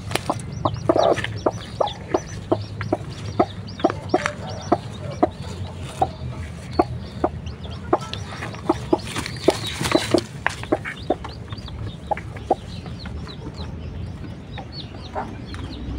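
Broody hen clucking in a fast run of short, sharp notes, several a second, as a hand is pushed under her on the nest, the warning clucks of a sitting hen disturbed on her eggs. Thin high peeps of newly hatched chicks come through now and then.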